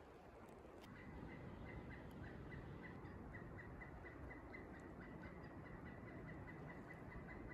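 Wind blowing through a snowy rhododendron thicket and over the microphone, with a faint high chirp repeating about four times a second from about a second in.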